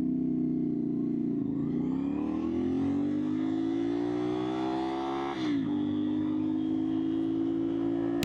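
CFMOTO 450SR parallel-twin engine under way: the revs climb steadily for a few seconds, drop sharply as it shifts up about five seconds in, then hold steady.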